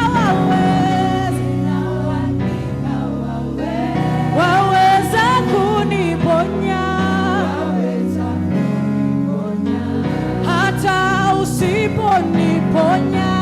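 Gospel worship music: voices singing a slow, gliding melody over steady sustained instrumental accompaniment.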